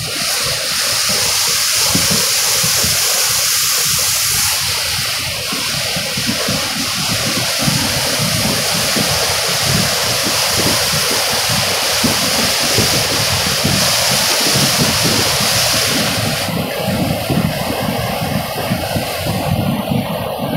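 Muddy floodwater rushing loudly down a river channel in a flash flood, a steady churning roar over a low, uneven rumble.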